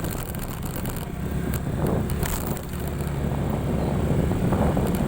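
Suzuki Skydrive Crossover scooter's engine running steadily while riding a rough trail, with wind on the microphone and a few sharp knocks or rattles from the bumpy ground.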